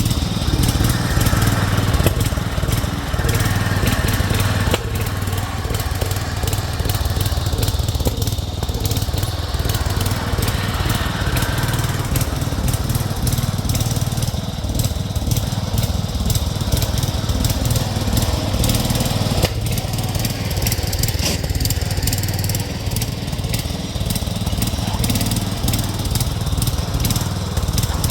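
Craftsman garden tractor's small engine running steadily under load as the machine is driven along.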